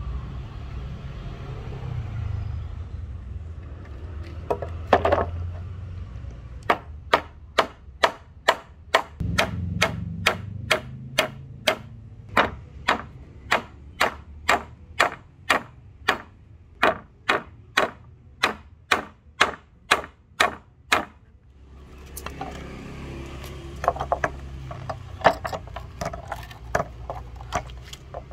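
Vintage Belknap Bluegrass claw hammer, newly fitted with an ebony handle, driving nails into a wooden board: a steady run of sharp strikes, about two a second, lasting some fifteen seconds. Near the end come irregular knocks and clicks.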